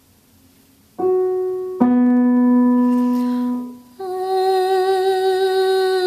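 Piano plays two notes a perfect fifth apart, high then low, the low one ringing for about two seconds. Then a woman's voice hums the 'ng' sound on the upper note, held with vibrato: the start of a vocal exercise sliding down the fifth.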